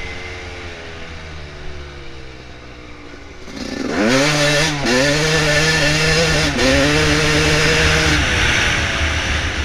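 Dirt bike engine easing off, then revving hard about three and a half seconds in and shifting up twice, each shift a brief dip in the note before it climbs again, then easing off near the end.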